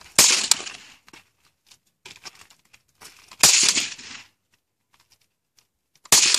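Suppressed FN PS90 carbine in 5.7x28mm firing three single shots about three seconds apart, each a sharp report with a short fading tail.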